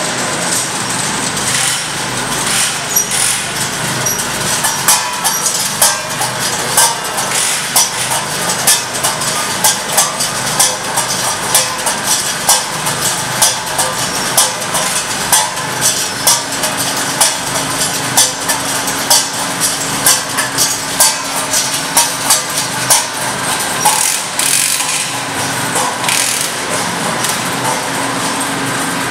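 Machinery noise in a metal workshop: a steady mechanical din with frequent, irregular metallic knocks, and a low steady hum that comes in about halfway.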